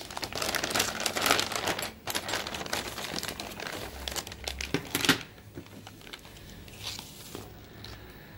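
Clear plastic bag being handled, crinkling and rustling for about five seconds, then much quieter.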